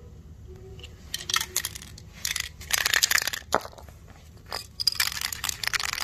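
Aerosol spray cans pressed valve to valve and then handled: a series of short hissy spurts and metal clinks, starting about a second in, with a sharp click in the middle.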